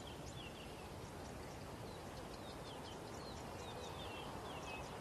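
Faint bird calls: clusters of short, high chirps that fall in pitch, repeated every second or so, over a steady background hiss.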